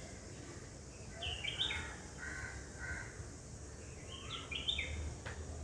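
Birds calling in the background: two quick runs of short, high, falling chirps, about a second in and again about four seconds in, with a few lower notes between.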